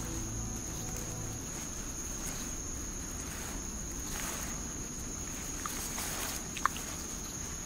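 Insects, crickets or the like, chirring in one steady high-pitched tone, with a single brief sharp chirp near the end.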